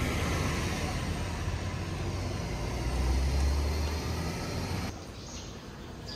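Steady low rumble of a running motor vehicle with a broad noise over it, which drops away abruptly about five seconds in.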